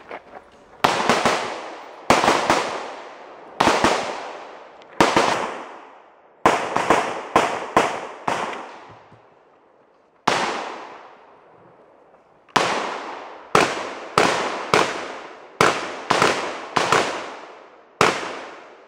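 About twenty gunshots, fired singly and in quick strings of three to five shots a fraction of a second apart. Each shot cracks sharply and fades out in a long echo, with pauses of a second or two between strings.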